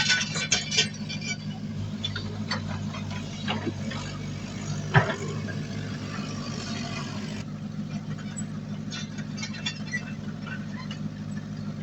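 Heavy earthmoving machine's diesel engine running steadily, with scattered metallic clanks and knocks, thickest at the start, and one sharp loud knock about five seconds in.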